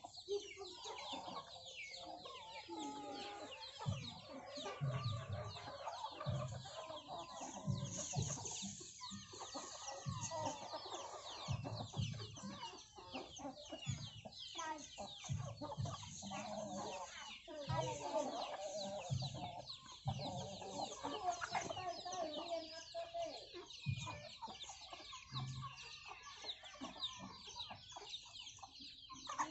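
A flock of domestic hens and roosters clucking continuously as they peck at a bundle of young rice seedlings, with the thin high peeping of chicks over the clucks. Dull low thumps come every second or two.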